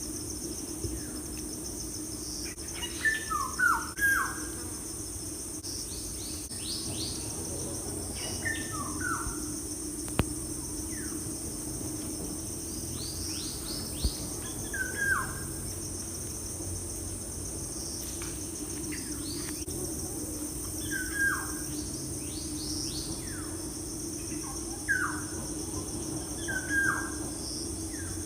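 Birds chirping in short, falling calls that come in clusters every few seconds, over a steady high insect drone and a low steady hum.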